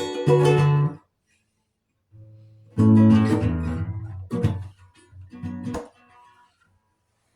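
Acoustic guitar strumming chords. A strummed chord stops about a second in, and after a short pause a few more chords are struck and left to ring, dying away near the end.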